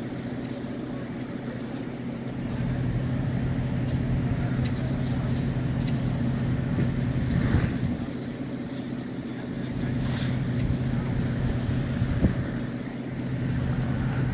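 Heavy diesel engines running with a steady low drone, with a few sharp knocks about halfway through and again near the end.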